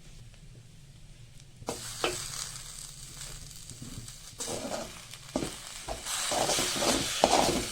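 Food sizzling in hot oil in a pan, starting suddenly a little under two seconds in, with a spatula stirring and scraping that grows louder and busier toward the end.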